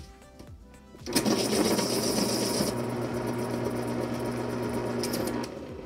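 X-ACTO School Pro electric pencil sharpener's motor and helical cutter sharpening a colored pencil: the motor starts about a second in with a steady hum and a grinding cut. The sharper cutting noise eases partway through while the motor hum runs on, then stops shortly before the end.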